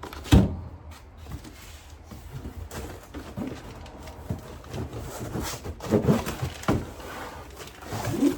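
Parts and packaging being handled: a sharp knock a third of a second in, then rustling and a run of further knocks, loudest about six and seven seconds in and again near the end.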